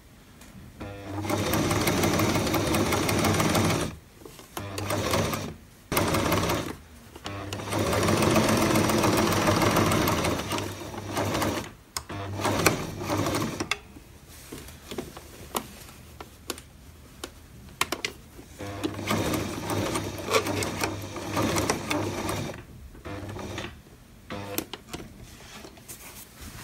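Electric domestic sewing machine stitching a boning channel onto bodice lining fabric. It runs in stretches of a few seconds with brief stops between them, and in the middle goes in shorter stop-start spurts.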